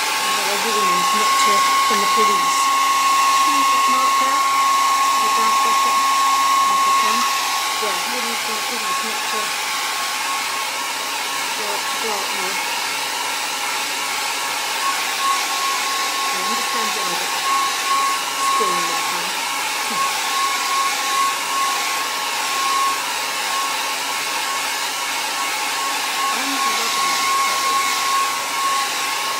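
Handheld hair dryer blowing steadily over wet watercolour paper to dry it: a continuous rush of air with a steady high motor whine.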